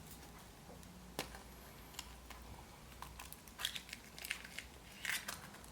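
Scattered small clicks and crinkling from hands handling a Kinder Surprise egg and its small plastic toy parts, sparse at first and busier in the second half.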